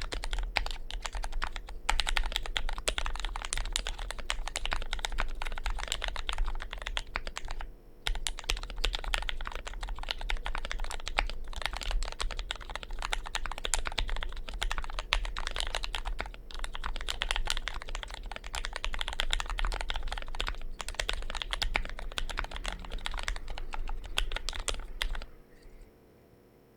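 Fast, continuous typing on a Vortex POK3R 60% mechanical keyboard with lubed Gateron Milk-housing Red linear switches and ePBT keycaps: a dense clatter of key presses broken by a few brief pauses. It stops about 25 seconds in.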